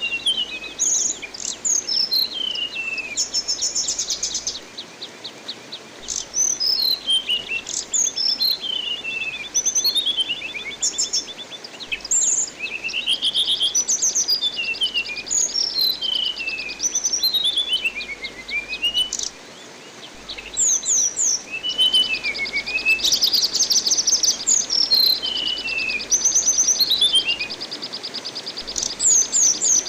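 Anis binbin thrush singing: quick series of whistled notes sliding downward, mixed with fast chattering trills, over a steady hiss of running water. The song pauses briefly twice.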